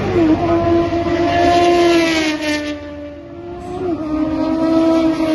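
Kawasaki Z1000's inline-four engine running loud through an SC-Project full exhaust system as the bike passes, its note held fairly steady, with a short blip of revs about four seconds in.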